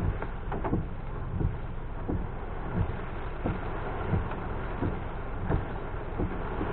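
Car driving in heavy rain: a steady rush of rain and wet-road noise, with windscreen wipers sweeping in an even beat, a soft thump about every 0.7 seconds.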